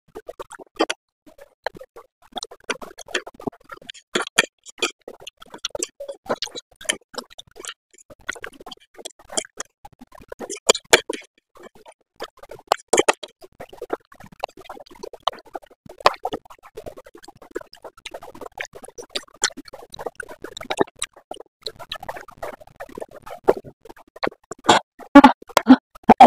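Close-miked eating of spicy Korean noodles: irregular wet slurps, chewing smacks and small clicks, denser and heavier near the end.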